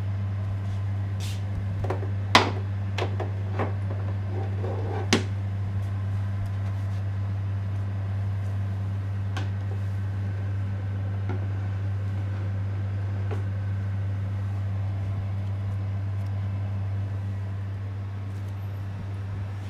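Steady low hum with a few light knocks and taps in the first five seconds, the loudest about two and a half seconds in and another about five seconds in, as cut slices of futomaki are handled on a wooden cutting board; a few fainter ticks follow.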